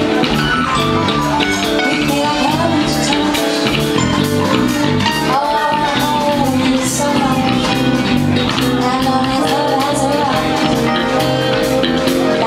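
Live band music with a woman singing lead over drums and electric guitar, amplified through the PA.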